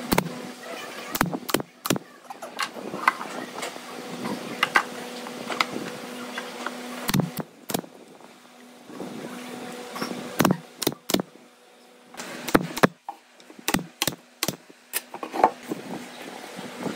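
Pneumatic brad nailer firing brads into pine boards, over a dozen sharp snaps in quick groups of two to four, with a steady low hum underneath.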